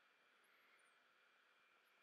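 Near silence: only a faint steady hiss.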